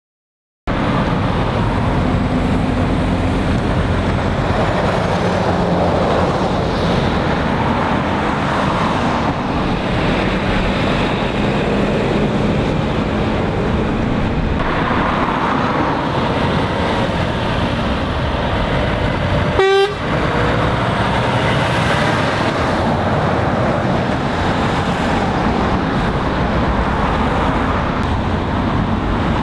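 Steady road traffic, lorries and cars driving past on a roundabout. About two-thirds of the way through, a vehicle horn gives one short toot. The sound starts after a moment's silence.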